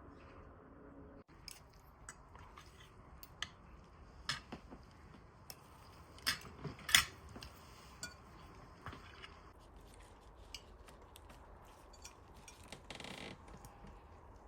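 Cutlery clinking and scraping against dishes: scattered light clinks, with a few louder ones about six to seven seconds in.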